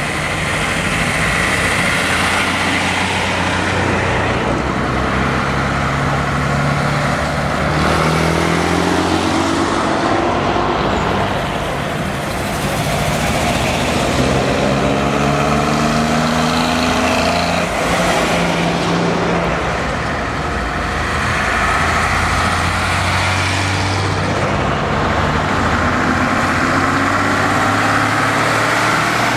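Vintage trucks driving past one after another, their engines rising in pitch several times as they pull away and shift up through the gears.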